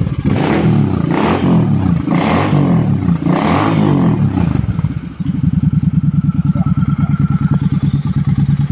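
Suzuki Boulevard C50's 805 cc V-twin running through a handmade 2-into-2 full exhaust with straight-cut tips, blipped up and down about four times, then dropping back to a steady, evenly pulsing idle about five seconds in.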